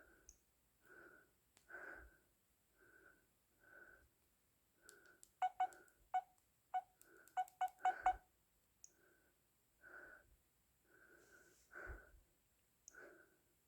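Samsung Galaxy A3 (2016) ringtone playing through the phone's speaker: soft pulsing tones about once a second, with a quick run of short, sharp pitched notes about five to eight seconds in.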